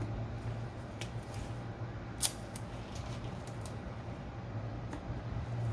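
Small handling clicks from hands at work with tape and wires, the loudest about two seconds in, over a steady low hum.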